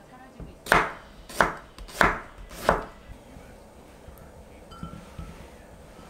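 A kitchen knife cutting down onto a wooden cutting board, slicing a plum: four sharp cuts about two-thirds of a second apart, followed by a few faint light clicks near the end.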